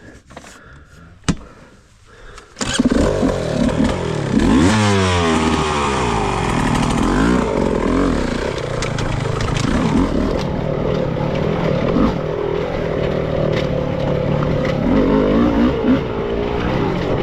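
Beta 300RR two-stroke dirt bike engine starting up about three seconds in, revving up and down a few times, then running steadily. It has a loud, raspy exhaust note from a hole a rock punched in the exhaust pipe.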